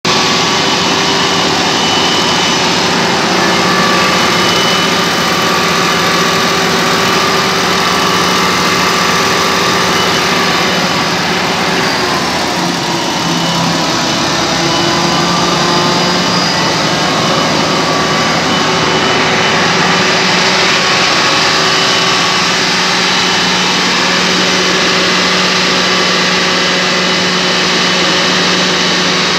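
Freshly overhauled heavy multi-cylinder engine running steadily on a test stand, a loud even hum. Its speed dips briefly about twelve seconds in, then recovers.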